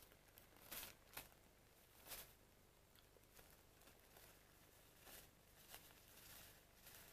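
Faint rustling and crinkling of a paper tea bag being handled and unfolded between the fingers. The loudest crackles come about one and two seconds in, with softer rustles near the end.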